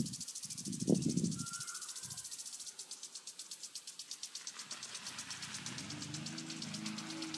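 Insects trilling in a fast, even pulse throughout. A brief low sound comes about a second in, and a low steady hum joins about six seconds in.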